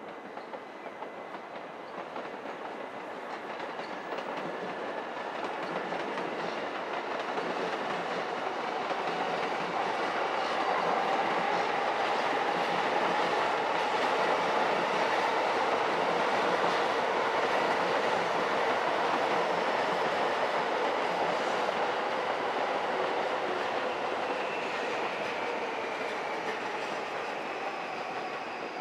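Several electric trains, among them an E657-series limited express, running over the tracks with steady wheel-on-rail noise and a faint held whine. It builds to a peak about halfway through, then slowly fades.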